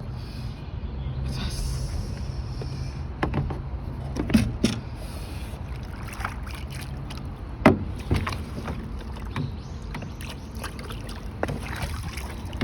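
Scattered knocks and clatter on a small rowboat, with a steady low rumble underneath. The loudest knocks come about four and a half and about seven and a half seconds in.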